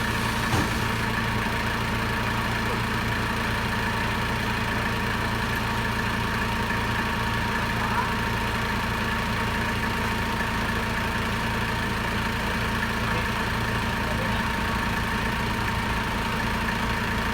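Nissan 3-ton forklift engine idling steadily.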